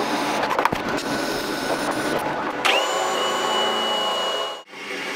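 TIG welding arc hissing with a few crackles on a pipe fitting; then, about two and a half seconds in, a cordless drill with a socket running with a steady high whine as it tightens a pipe union. The drill stops for a moment near the end and starts again.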